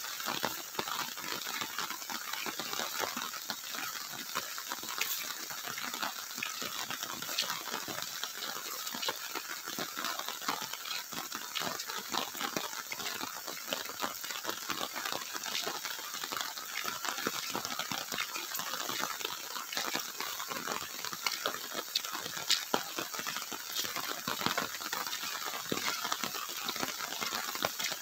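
Footsteps and the rustle of grass and leafy plants brushing past as someone walks a dirt footpath through undergrowth: a dense, steady run of small crackles and swishes.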